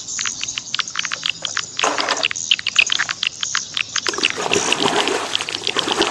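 Water splashing and sloshing as a muddy toy vehicle is washed, louder from about four seconds in. Under it runs a fast, even chirping chorus of frogs.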